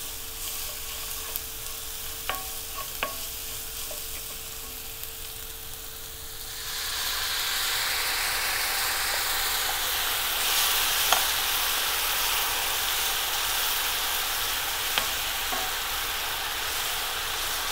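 Spiced masala gravy with chicken broth sizzling in a hot pan as it is stirred, with a few sharp spoon clicks against the pan. About six and a half seconds in, the sizzle grows louder and stays up.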